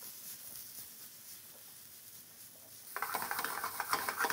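Chopped onion and garlic sizzling faintly in olive oil in a non-stick frying pan as they start to soften. About three seconds in, a spatula begins scraping and stirring them around the pan in quick irregular strokes.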